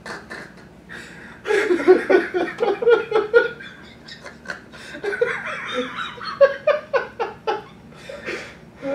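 Two men laughing hard in fits. The laughter breaks out about a second and a half in, eases briefly in the middle, then breaks out again.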